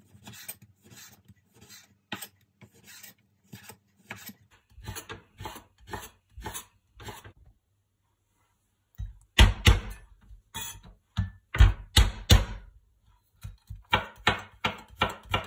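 Kitchen knife chopping salted radish into small pieces on a wooden cutting board, one blade stroke after another. The strokes are light and about two a second at first; after a short pause about halfway through, the chopping gets louder and quicker.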